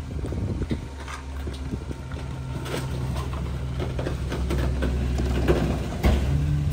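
Engine of a Heil rear-loader garbage truck running steadily at low speed, with scattered light clanks and knocks. About six seconds in, the engine note steps up higher and louder.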